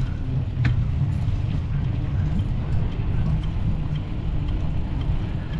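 Wind rumbling steadily across the microphone of a camera carried on a moving bicycle, with a few faint ticks.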